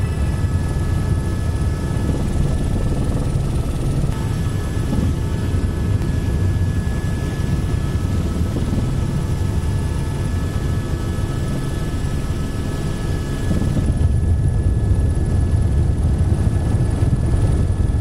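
Helicopter running steadily, heard from aboard: a loud low rotor rumble with a steady high turbine whine over it, a little louder near the end.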